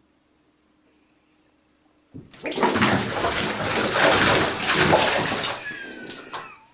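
A cat plunging into a filled bathtub and splashing hard as it thrashes and paddles for the edge. The splashing starts suddenly about two seconds in and dies away in the last second.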